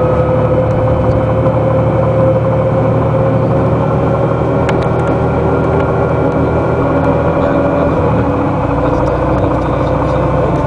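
Den Oudsten Alliance B96 city bus running, heard from inside the passenger cabin: a steady engine drone with a whining tone that sags slightly, the sound shifting about eight seconds in.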